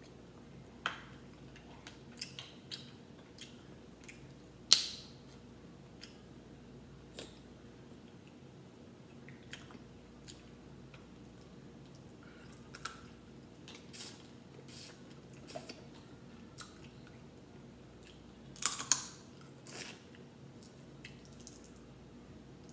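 Crab legs being eaten by hand: shell pieces cracked and picked apart, with chewing and mouth sounds. Scattered sharp cracks and clicks, the loudest about five seconds in and a small cluster near the end.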